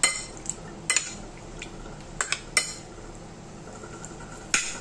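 A metal spoon clinking and scraping against a ceramic bowl as seasoned chicken wings are stirred, with several sharp clinks at irregular moments.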